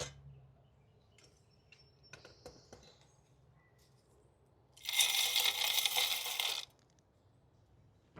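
Mixed birdseed poured from a cup into a bird feeder: a few faint clicks of seed, then a loud rush of seed pattering in for about two seconds just past the middle.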